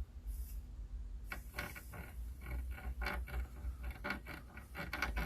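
Quick, uneven scratching or scrubbing strokes on a circuit board, starting about a second in, over a steady low hum.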